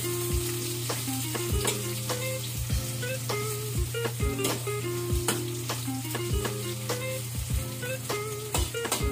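Onion and garlic sizzling in hot oil in a metal wok, with a metal spatula stirring and scraping the pan and clicking against it about once a second.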